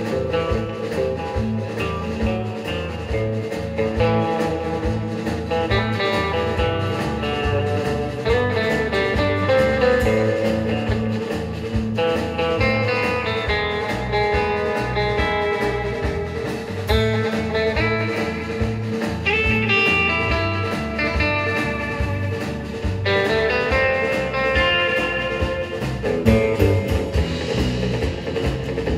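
Live rautalanka instrumental band music: electric guitars, bass guitar and drum kit playing with a steady beat.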